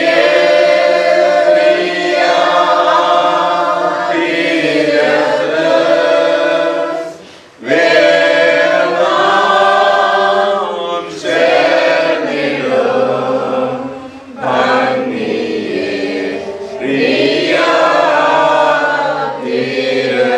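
Unaccompanied group of voices singing a liturgical funeral chant in long, sustained phrases, pausing briefly between phrases about seven and a half and fourteen seconds in.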